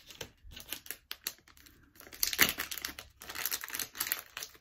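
A small plastic jewellery packet crinkling and rustling as it is handled, loudest about halfway through, after a few light taps.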